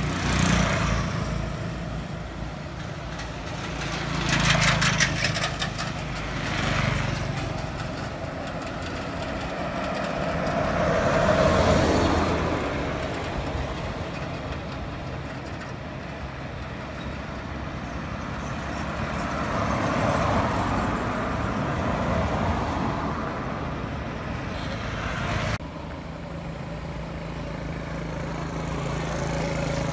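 Road traffic: vehicles passing one after another, each swelling and fading over a few seconds, over a steady outdoor hum.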